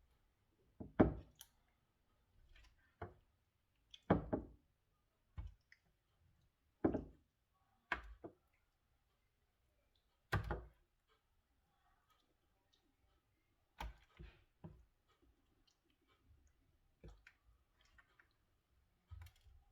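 Irregular knocks and light clatter of kitchen handling as marinated chicken pieces are laid into a roasting pan: about a dozen separate knocks with quiet gaps between them.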